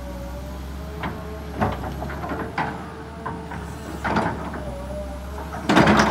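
A Kobelco SK200 hydraulic excavator runs steadily as it digs, with a low engine drone and a whine that wavers slightly in pitch. Its steel bucket knocks and scrapes against soil and roots several times, loudest near the end.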